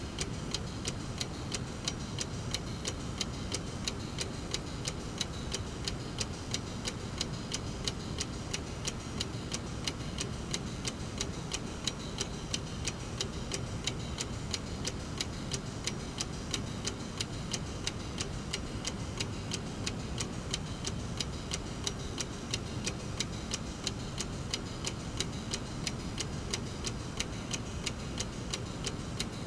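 Brass mechanical clock movement ticking quickly and evenly as its escapement runs, over a steady low background noise.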